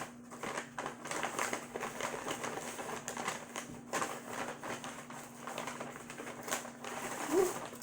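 Paper fast-food bag rustling and crinkling in irregular bursts as items are pulled out of it by hand.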